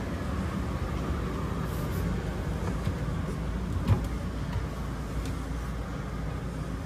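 Steady low hum of running machinery, with a single footstep thump on the companionway steps about four seconds in.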